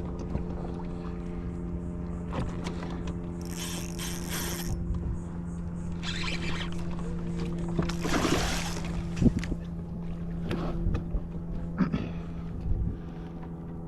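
Steady hum of a boat motor running, with a few short water splashes about three and a half and eight seconds in, and a few light knocks.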